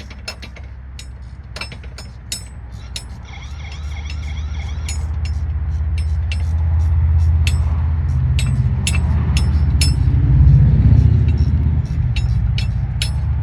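A vehicle's low engine rumble building up and running loudly, with many sharp clicks and ticks throughout.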